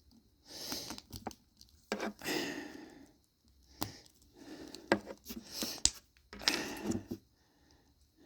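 Plastic action-figure parts being handled: rustling with several sharp clicks as the figure's hands are pulled off and pressed back on.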